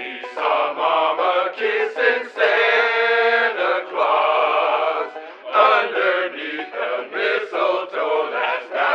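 Several voices singing a Christmas song together, chant-like.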